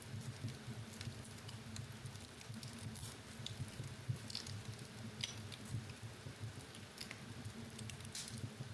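Wood fire in a fireplace crackling, with many small irregular pops and snaps over a low, steady rumble.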